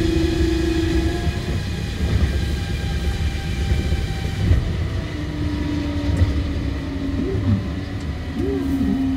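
Osaka Monorail 2000 series train running, with a steady low rumble and a motor whine. The whine stops about a second in, and a lower whine comes back after about five seconds, with a few short swoops in pitch near the end.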